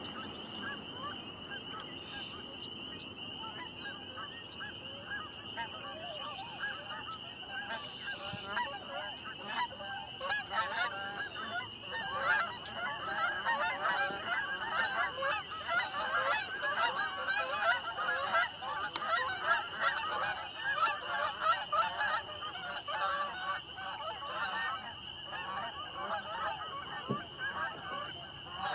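A flock of geese honking in flight, many overlapping calls that grow denser and louder about a third of the way in as more birds pass.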